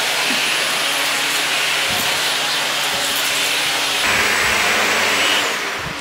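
Bosch Series 2 bagged vacuum cleaner running steadily, its turbo-brush nozzle pushed over a rug. It gets a little louder about four seconds in and begins to drop away near the end.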